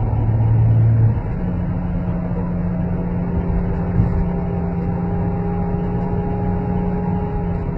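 Chrysler 300C with a weird whining noise: a steady whine over the car's running sound. The whine steps up in pitch about a second in, and a fainter, higher whine joins a couple of seconds later.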